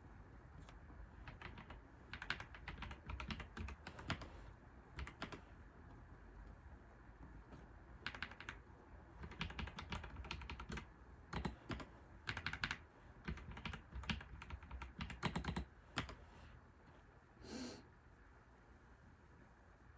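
Typing on a computer keyboard in quick runs of keystrokes with short pauses between them, then one brief, softer, different sound near the end.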